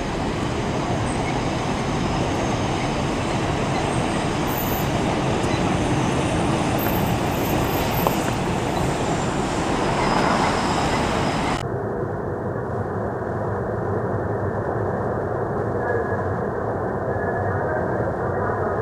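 Electric commuter train running past on an elevated viaduct: a steady rumble of wheels on rails. About 11 seconds in it cuts to a duller, muffled train rumble.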